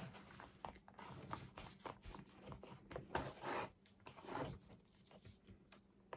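A needle and waxed thread being pulled through pre-punched stitching holes in leather during hand-sewing: a few faint scratchy pulls of thread, with small clicks and rustles in between.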